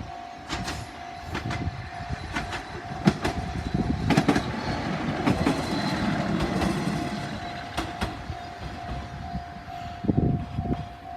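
Level-crossing warning bell ringing steadily while a diesel railcar passes over the crossing, its wheels clacking on the rail joints. The train's rumble builds up, is loudest in the middle, and fades near the end.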